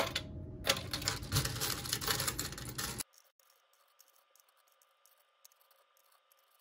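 Nickels clinking and clicking as they are picked from a wooden tray and pressed into the slots of a plastic coin-counting tray, with many small rapid clicks. The sound cuts off abruptly about three seconds in, leaving near silence.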